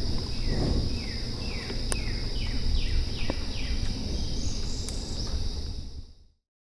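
Insects droning steadily on one high pitch. A bird calls a run of about eight short falling notes, coming closer together over about two seconds. A low rumble sits on the microphone throughout, and everything fades out abruptly near the end.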